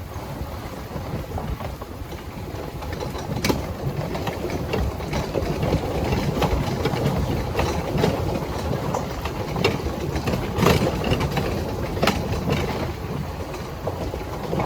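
Wheeled dog cart rumbling and rattling steadily over a rough trail as the dog team pulls it, with occasional sharp knocks as it jolts over bumps.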